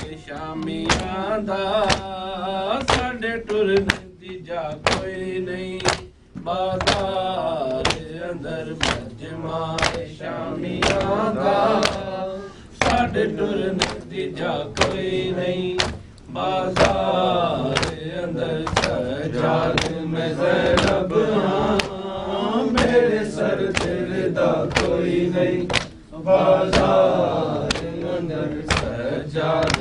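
A man chanting an Urdu noha lament in drawn-out sung lines with short breaks between them, with mourners' chest-beating (matam) striking in a steady beat about twice a second.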